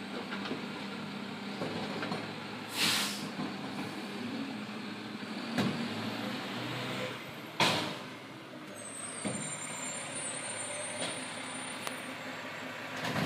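Diesel garbage truck engine running as the truck pulls forward, with air brake hisses: a longer hiss about three seconds in and a short sharp one a little before eight seconds.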